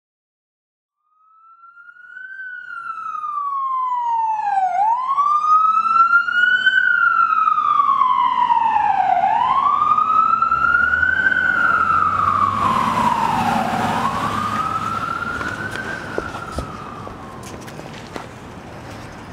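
Emergency vehicle siren in a slow wail, its pitch rising and falling about every four and a half seconds; it fades in about a second in and dies away near the end, with a low rumble under it in the second half.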